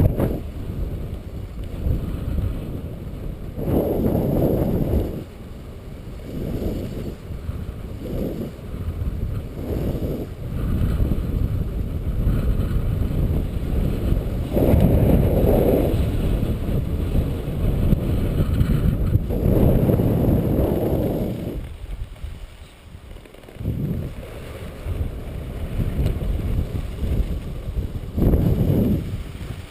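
Strong, gusty wind buffeting an action-camera microphone: a low rumble that swells and drops in surges of a second or two, loudest around 4, 15 and 20 seconds in.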